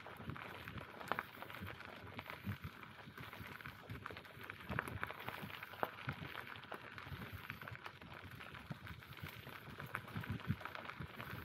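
Bicycle tyres rolling along a forest path: a steady crunching crackle with irregular low thumps underneath.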